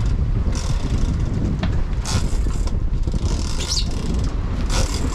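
Steady low rumble of the boat's engines under way, with wind on the microphone and repeated hissing surges of spray from the churning wash at the stern.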